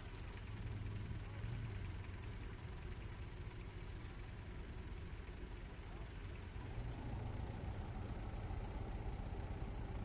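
Vintage tractor engines running steadily while ploughing, a low steady rumble.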